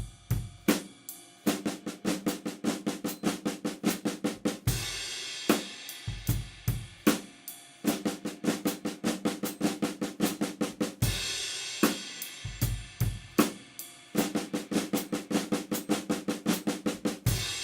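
Drum kit: the Swiss Army triplet flam rudiment played on the snare drum as fast, even sixteenth notes, in three runs of about three seconds each. Each run ends on one beat with a cymbal crash and bass drum hit. A few slower bass drum and snare strokes fill the gaps between runs.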